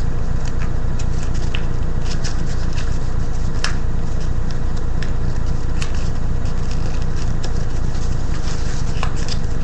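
Sheet of paper being handled, folded and creased, giving scattered short crinkles and crackles over a steady low rumble.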